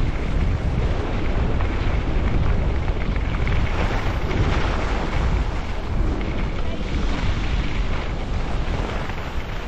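Wind rumbling on the microphone of a skier running downhill at speed, with the steady hiss of skis sliding over snow.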